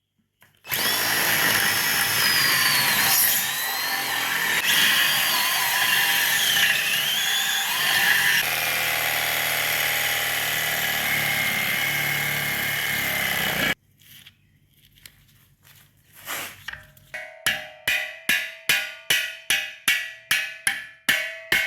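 A power tool cutting through an old subframe bushing runs under load with a wavering whine for about thirteen seconds, then stops suddenly. A few seconds later a hammer strikes metal repeatedly, about three blows a second, each with a ringing tone, as the bushing is tapped out.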